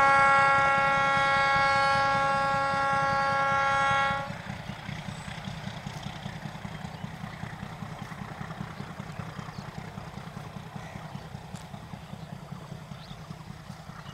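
Air horn of a 1978 MLW-built ALCO DL535A meter-gauge diesel locomotive sounding one long steady blast that cuts off about four seconds in. A low rumble from the moving train carries on after it and slowly fades as the train draws away.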